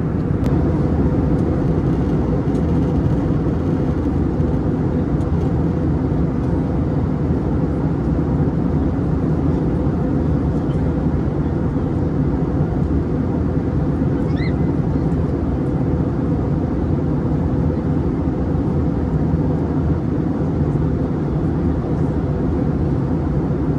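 Steady cabin noise of an Airbus A321neo airliner in flight: a loud, even rumble of engines and airflow, with a faint steady hum.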